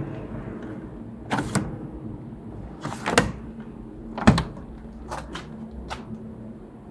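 Zanussi ZWG 1120M washing machine: a steady low hum with a series of sharp, irregular clunks and knocks, several in close pairs, the loudest about four seconds in.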